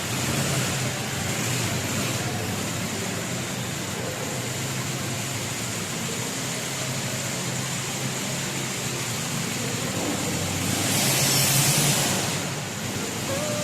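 Steady road traffic noise, swelling into a louder rushing hiss about eleven seconds in, as of a vehicle passing.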